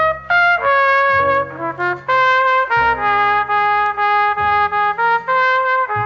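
Background music: a brass instrument plays a melody of held notes over a low accompaniment.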